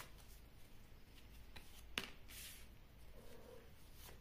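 A tarot card laid down on a table: one sharp tap about halfway through, followed by a brief papery slide, with a few fainter card ticks around it.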